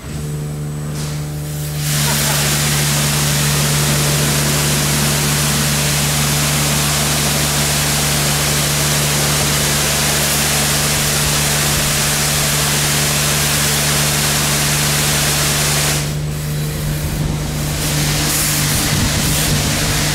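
Ceccato Hydrus Tech rollover car wash gantry working over a van. A motor starts with a steady low hum, and about two seconds in water begins hissing from the gantry's spray nozzles. The spray eases briefly about sixteen seconds in, then picks up again.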